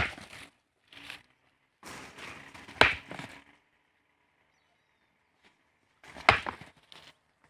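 Two rams butting heads: three sharp cracks of horn on horn, one at the very start, one about three seconds in and one about six seconds in.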